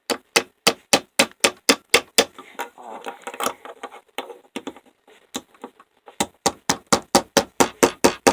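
Hammer striking a bent metal door-handle part to bend it back into place: a run of quick blows about four a second, a lull of a few seconds with only a few light knocks, then another steady run of blows.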